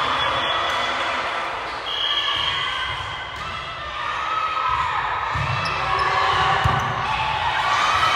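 Volleyballs thudding as they are hit and bounce on the court, over echoing chatter and shouts in a gym hall, with the sharpest thud about two thirds of the way in.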